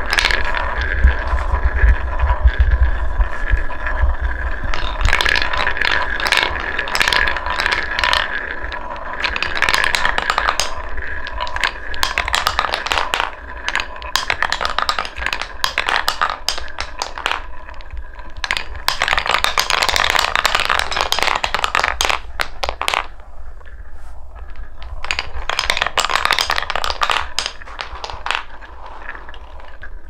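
Orange balls rolling round a circular beech-wood funnel bowl of a wooden marble run: a continuous rolling rumble with a steady ringing hum and frequent sharp clacks as the balls knock into each other and the bowl.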